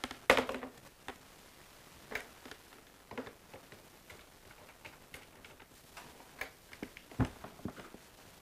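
Corded desk telephone being handled: a clatter as the handset goes down, then scattered light clicks and taps at uneven spacing, with a heavier knock about seven seconds in.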